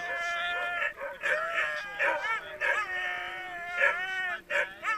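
A chorus of sled dogs howling and yipping. A long held howl with a slight slide in pitch runs through the middle, with shorter yelping cries rising and falling around it.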